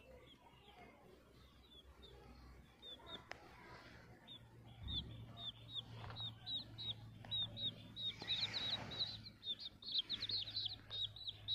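Domestic chicks peeping: short, high, falling peeps, sparse at first, then louder and coming fast and thick toward the end as a chick is picked up in a hand.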